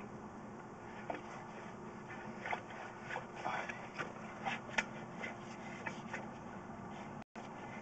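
Steady low electrical hum from sewer inspection camera gear, with scattered faint clicks and scrapes that cluster in the middle, and a brief total cut-out of the sound near the end.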